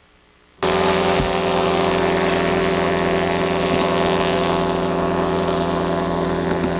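Motorboat engine running steadily at speed, cutting in abruptly about half a second in.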